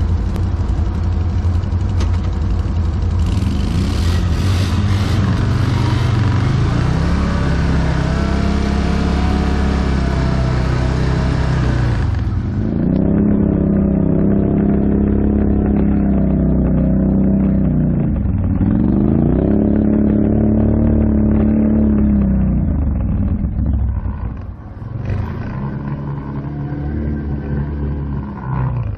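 ATV engine revving in repeated surges, the pitch climbing, holding and dropping back four times. A loud rushing noise lies over the engine for the first twelve seconds or so, then cuts off suddenly.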